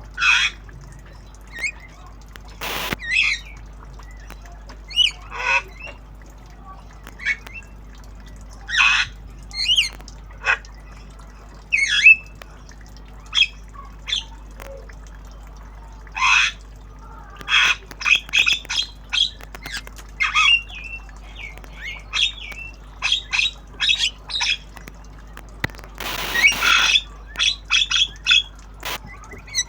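Javan myna calling: a string of short squawks and chirps, some in quick runs of notes, with a longer harsh squawk near the end.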